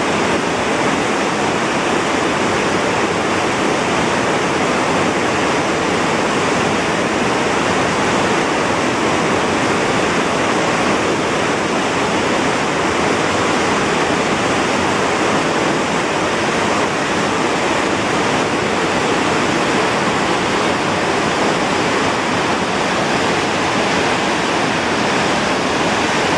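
Steady, loud rushing of sea water stirred up by a moving cruise ship, mixed with wind on the open deck.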